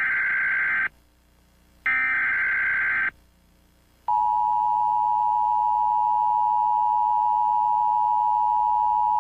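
Emergency Alert System alert tones: two bursts of SAME header data, each lasting a little over a second with a short gap between them. About four seconds in, the steady two-tone EAS attention signal starts and holds.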